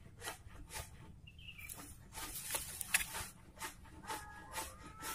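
Utility knife blade scoring and scraping the bark of a water apple stem in quick short strokes, with one sharper click about three seconds in. About four seconds in, a faint drawn-out call comes in over the scraping and slides gently down in pitch.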